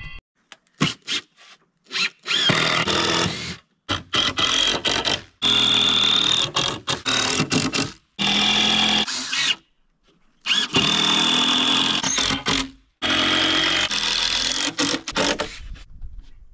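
Power drill driving screws into plywood, running in a series of short bursts with a steady high whine, broken by abrupt silences.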